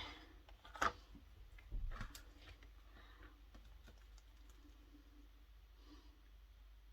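A few light clicks and taps from small craft tools being handled on a work surface: one sharp click about a second in and a short cluster around two seconds. After that only a faint steady hum remains.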